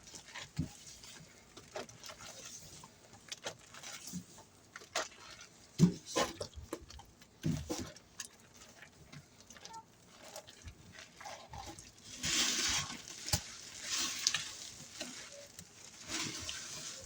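Wet squelching and clicking of hands mixing a soapy scouring paste of Comet powder, dish soap and Soft Scrub. About twelve seconds in, louder hissing squeezes of a suds-filled sponge begin.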